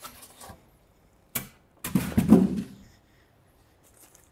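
Monitor packaging being handled inside a cardboard box with foam inserts: a sharp click, then a louder thud with rubbing that lasts about a second, as parts are moved in the packing.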